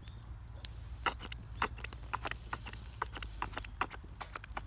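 Wood fire crackling: irregular sharp snaps and pops, several a second, starting about a second in.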